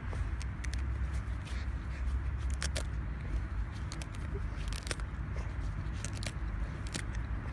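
Samoyed chewing and biting a plush toy, making irregular sharp clicks and crackles over a steady low rumble.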